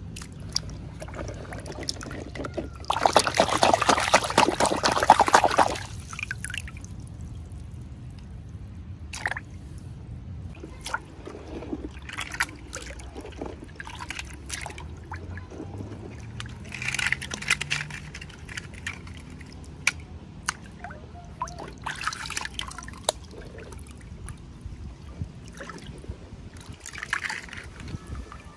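Liquid trickling for about three seconds, then scattered small clicks and taps with a few short, softer rustles.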